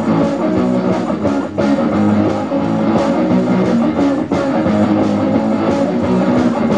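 Live garage rock played loud: electric guitars strummed over a steady beat.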